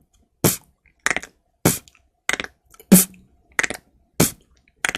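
Beatboxer's mouth sounds played slowly, one beat about every 0.6 s: kick, click roll, kick, click roll, punch snare, click roll, kick, click roll. Each click roll is a quick string of tongue clicks against the palate that sounds like bones cracking, and the punch snare about 3 s in is the loudest hit.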